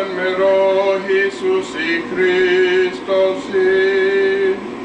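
A man's voice chanting an Armenian liturgical prayer unaccompanied, in a string of long held notes with short breaks between them.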